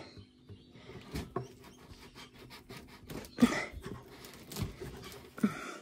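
Handling noise of a clear ribbed plastic vent hose and its black plastic cuff being worked onto the toilet's fan outlet: soft rustling and scraping with a few small clicks and knocks, the sharpest about three and a half seconds in.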